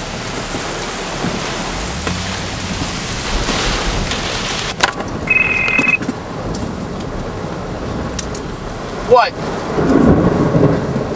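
Heavy rain on a car in a severe storm, with a low rumble underneath. About five seconds in comes a sharp knock, then a short electronic ring from a cell phone.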